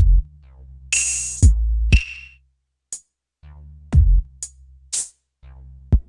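Electronic drum-machine beat playing through the mXa Studio One Knob compressor, exciter and reverb plug-ins. Deep kicks that drop in pitch, a few sharp snare hits and short hi-hat ticks sit over a steady bass line.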